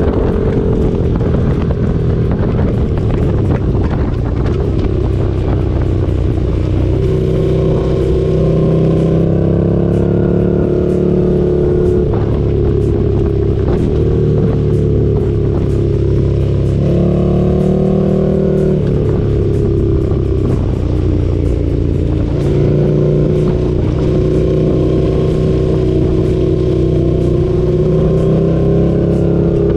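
Motorcycle engine heard onboard at track speed, running hard and steady, its pitch climbing and dropping with throttle and gear changes, most markedly midway through. Wind rushes over the microphone.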